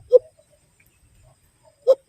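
Two short hoots blown through cupped hands, one just after the start and one near the end, imitating the kulo-kulo's (alimokon's) call to lure the bird closer.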